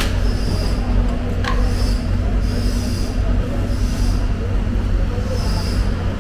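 Steady low mechanical hum and rumble with faint background voices, and a brief rising squeak about one and a half seconds in.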